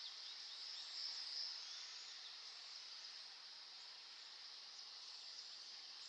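Faint outdoor background: a steady high-pitched hiss, a little louder about a second in, with a few faint short calls. No pecking strikes stand out.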